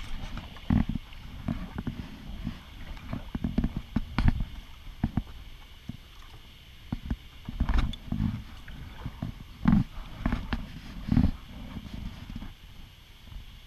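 Kayak paddling: irregular dull thumps and knocks from the paddle dipping into the water and bumping the plastic hull, with a few sharper knocks.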